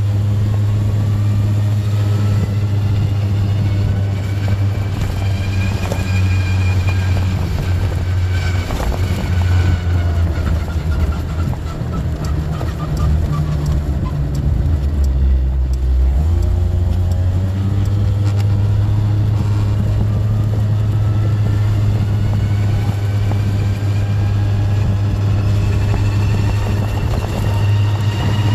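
Small canopy scooter engine running on the move, its pitch rising and falling with speed, under a loud low drone. The drone is the abnormal 'boo' noise that sets in above about 20 km/h; it drops away briefly about halfway through and returns as the scooter picks up speed again.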